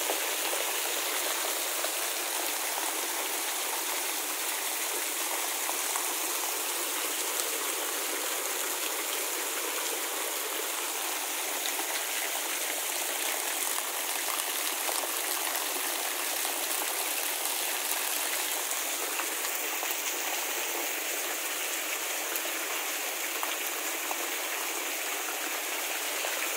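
Heavy storm rain pouring down steadily, with a stream of runoff falling from above and splashing onto the muddy ground.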